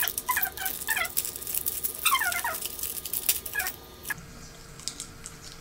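Plastic wrapper of a cereal bar crinkling as it is opened, with a string of short high chirps that fall in pitch, like a bird calling. Both stop abruptly about four seconds in, leaving only a faint steady hum.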